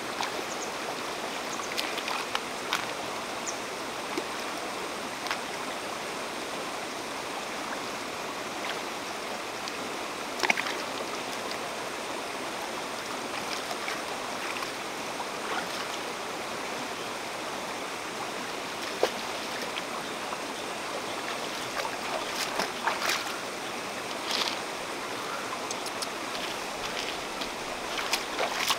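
Shallow rocky river flowing steadily over stones, with a few sharp clicks and small splashes now and then.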